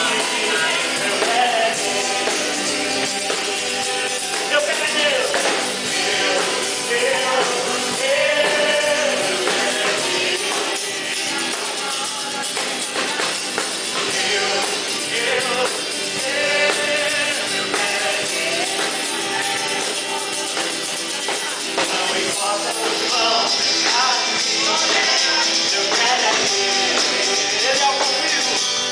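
Live worship band playing an upbeat song: a man singing into a microphone over acoustic guitar and drum kit. High, jingling percussion grows louder near the end.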